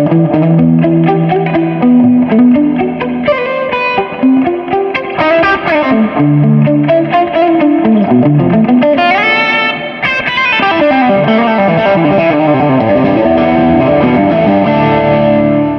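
Electric guitar, a Gibson Les Paul Standard with Vergatto Notturno humbuckers, played through a smooth overdrive with light breakup. It plays expressive single-note lead lines with string bends and ends on a sustained note.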